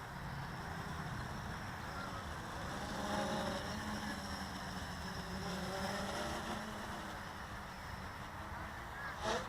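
Quadcopter motors humming, their pitch wavering, with one short sharp knock near the end.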